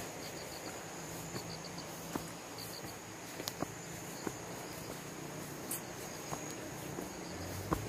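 Insects calling in forest: a steady high-pitched buzz with short pulsed chirps three times in the first few seconds. Scattered soft crunches of footsteps on dry leaf litter.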